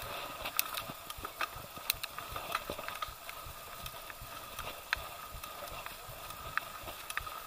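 Mountain bike rolling over a dirt forest trail: tyre noise with frequent small rattles and knocks as the bike goes over roots and bumps, over a faint steady whine.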